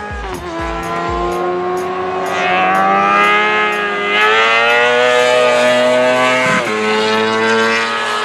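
Racing sidecar outfit's engine accelerating hard, its pitch climbing for several seconds, then dropping sharply at a gear change about six and a half seconds in before pulling on, growing louder as it comes closer.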